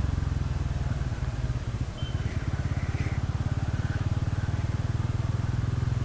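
Bajaj Pulsar N160's single-cylinder engine running steadily at low revs, its exhaust beat even and rapid.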